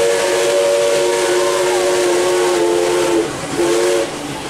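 Steam locomotive whistle giving a long steady blast that cuts off about three seconds in, then one short blast, over the steady hiss of a steam train running.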